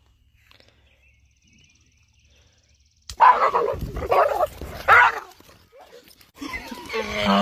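Near silence, then, about three seconds in, a sharp click followed by a dog barking several times in quick succession. Near the end comes a drawn-out, pitched dog cry.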